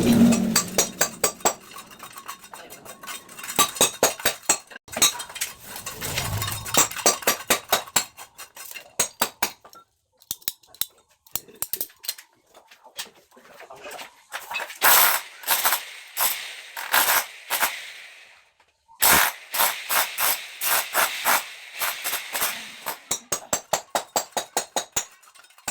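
Runs of sharp, hard taps and clinks, several a second, with short pauses between the runs; the strikes come densest about fifteen and twenty seconds in.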